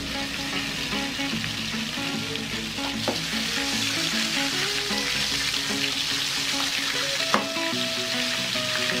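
Flour-coated chicken pieces sizzling as they deep-fry in hot oil, with a metal spatula turning them and knocking against the metal pan twice.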